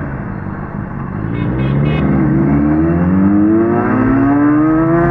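Benelli 300 parallel-twin on its stock exhaust, accelerating hard. Its pitch rises steadily through a gear from about a second and a half in.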